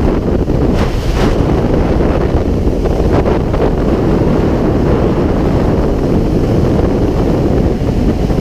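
Wind buffeting the microphone of a motorcycle riding at freeway speed: a loud, steady low rumble of wind and road noise, with a few brief stronger gusts about one and three seconds in.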